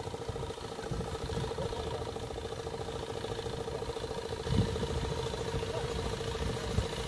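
An engine idling steadily out of sight, a constant hum, over uneven low rumbling, with a dull thump about four and a half seconds in.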